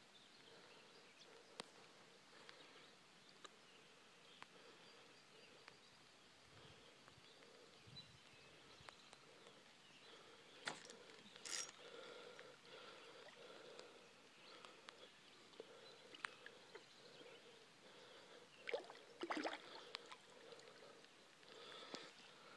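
Near silence: faint outdoor ambience, with a few short rustles and taps, the loudest about 11 and 19 seconds in.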